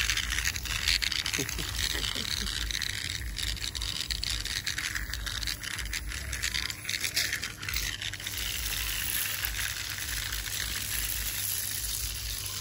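Remote-control toy centipede crawling: its small electric motor and gears whirring while the plastic legs clatter rapidly on concrete, a continuous rattle of fine clicks.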